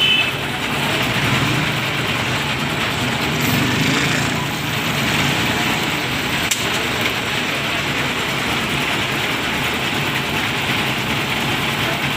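Concrete mixer machine running steadily, with a single short click about six and a half seconds in.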